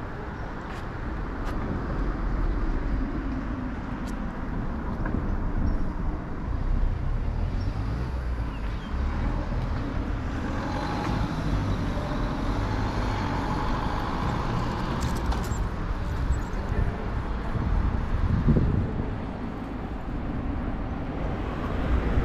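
City street traffic: the steady rumble of passing cars and other road vehicles.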